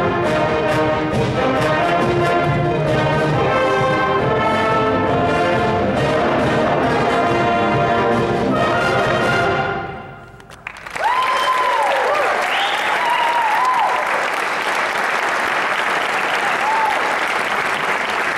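A high school concert band, clarinets and brass, plays the final bars of a piece over a steady beat, the music ending and dying away about nine to ten seconds in. After a brief hush, the audience breaks into loud applause and cheering.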